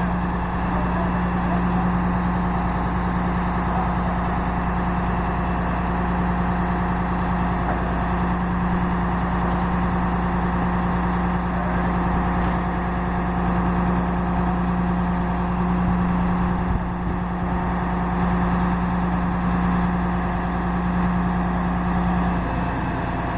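Crane's engine running steadily with a low hum while the crane holds the lifted church turret on its cables; the hum drops away near the end.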